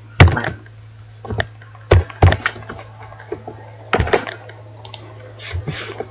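Computer keyboard keystrokes: scattered, sharp key clicks, sometimes two in quick succession, over a steady low hum.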